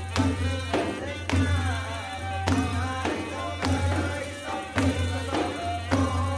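Background music: a melody over a steady low drone, with sharp drum or tambourine strikes coming about every half second to a second.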